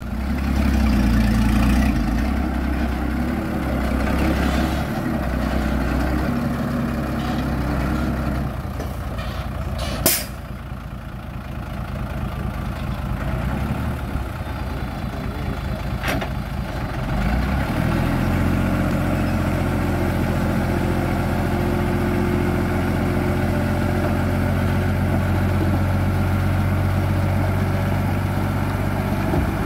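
Diesel engine of a loaded 5-ton dump truck running, easing down to a lower idle about eight seconds in, with a short sharp hiss about ten seconds in and a fainter one at sixteen. From about seventeen seconds the engine holds a steady, stronger run while the hydraulic hoist raises the bed to tip the load.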